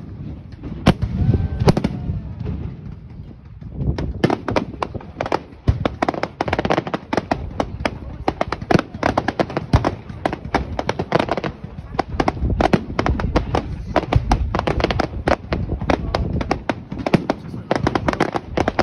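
Fireworks display: a few separate bangs of aerial shells, then, about four seconds in, a dense rapid crackling of many small bursts begins and keeps going.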